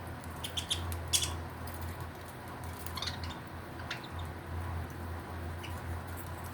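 Budgies pecking at and husking seeds from a millet spray: a scatter of short clicks and cracks, loudest just after a second in, over a steady low hum.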